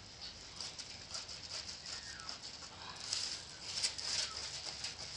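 Beef steak sizzling on a hot stone, a steady hiss full of small crackling pops that grows louder about three seconds in.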